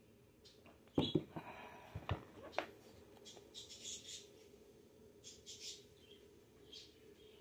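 A plastic water bottle being handled: a few sharp clicks and knocks about a second in as it is picked up and opened, then faint crackles of the plastic while drinking from it.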